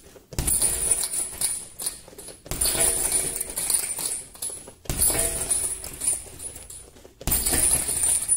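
Jabs thudding into a hanging heavy bag four times, about two and a half seconds apart, each followed by a metallic jingle of the bag's hanging chains as it swings.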